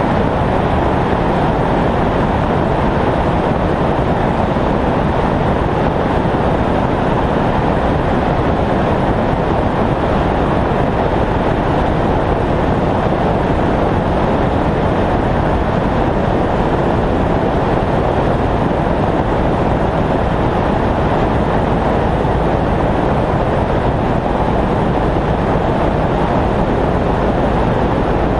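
Steady rush of airflow over a wing-mounted camera, mixed with the engine drone of a Cessna 172R flying on final approach at reduced power.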